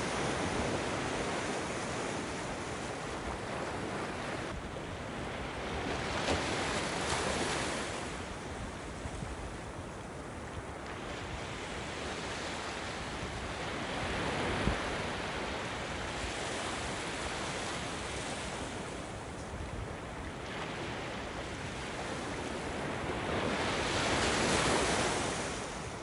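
Ocean surf breaking over rocks and washing up a sandy beach. Three waves swell in and fall back several seconds apart, the last and loudest near the end.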